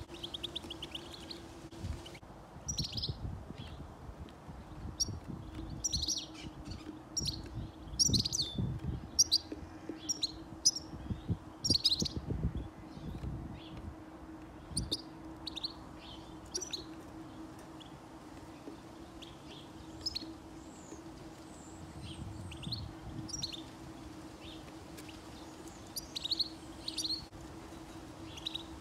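Small songbirds chirping in short, sharp calls, thickest through the first half and again near the end. Underneath are a faint steady hum and scattered low thumps.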